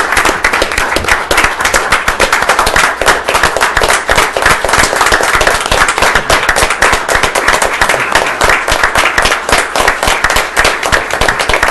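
A small audience applauding, many hands clapping in a dense, even stream.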